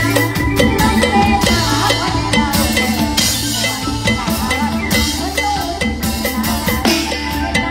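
Mor lam band music: a drum kit keeps a steady beat under a sustained bass, with a gliding melodic line above.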